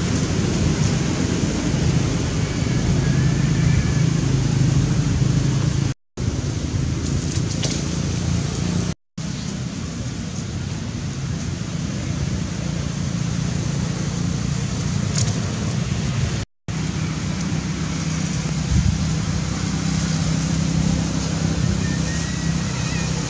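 Steady outdoor background noise, a low rumble with hiss. It cuts out completely for a split second three times.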